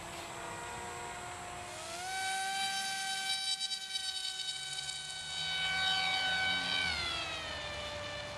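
ElectriFly Ammo 3180 kV in-runner brushless motor and propeller whining on an RC glider in flight; the whine rises in pitch and grows louder about two seconds in, holds steady, then drops back down near the end.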